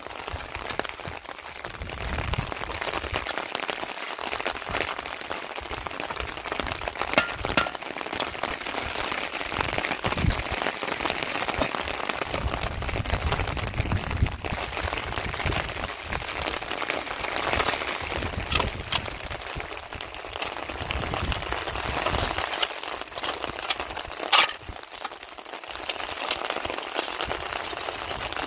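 Heavy rain falling, a steady hiss, with a few sharp cracks or knocks over it, the loudest near the end.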